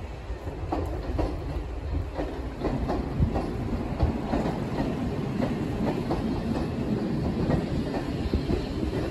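Railway carriage wheels clicking over rail joints as the train runs slowly, heard from on board, with a low rumble underneath.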